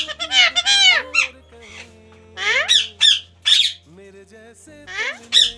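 Parrot squawking in a string of short, shrill, arching calls: a quick cluster in the first second, then single calls every half second to a second.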